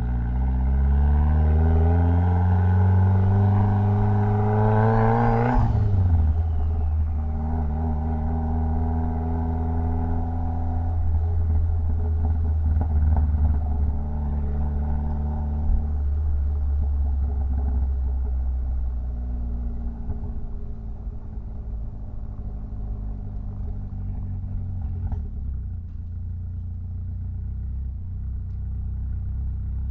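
Mitsubishi Lancer Evolution X's turbocharged 2.0-litre four-cylinder engine accelerating hard, its pitch rising for about five seconds before dropping sharply at a gear change or lift-off, then running at a steady pitch and gradually easing off.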